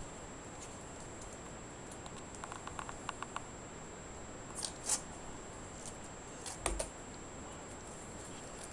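Faint scattered clicks and scratches from a water monitor (Varanus salvator) moving over bark-chip substrate while feeding tongs are handled near it. There is a quick run of about eight small clicks around three seconds in, and single sharper clicks near five and near seven seconds in.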